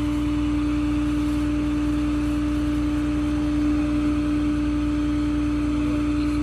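Flatbed tow truck's engine idling steadily, with a constant hum.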